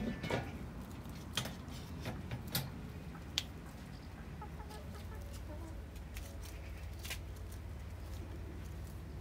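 Hens clucking softly while feeding, with several sharp taps in the first few seconds, the loudest one a little over three seconds in.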